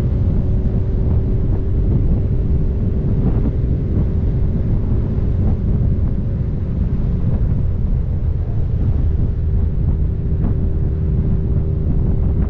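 Honda CB1000R's inline-four engine running steadily, with wind buffeting the microphone.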